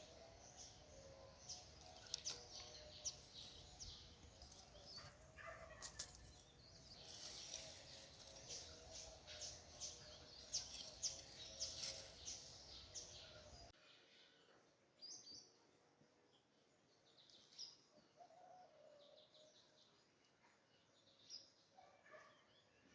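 Birds chirping in short, high calls over faint background noise; the background noise cuts off suddenly a little over halfway through, leaving fainter chirps.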